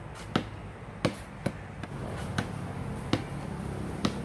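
Basketball being dribbled on a concrete slab: about six separate bounces at an uneven, hesitant pace.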